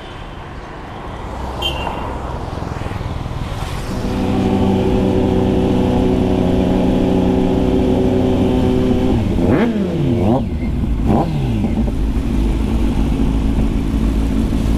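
Motorcycle engines running on the move. A steady engine note builds about four seconds in, and around ten seconds in the revs drop and climb sharply twice, the Kawasaki Z900's inline-four being blipped through its loud aftermarket SC Project exhaust alongside.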